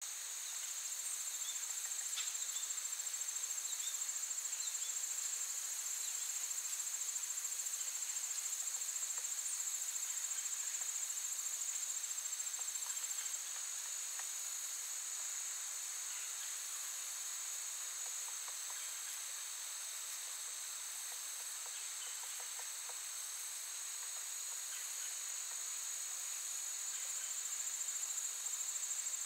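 Steady, high-pitched chorus of trilling insects, with a slight drop in level about halfway through.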